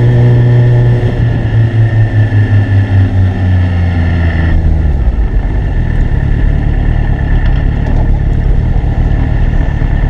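Gen 1 Suzuki Hayabusa's 1300cc inline-four engine winding down, its note falling steadily for about five seconds as the bike slows. The engine note then drops away, leaving wind and road rush with a low rumble as the bike rolls into a turn.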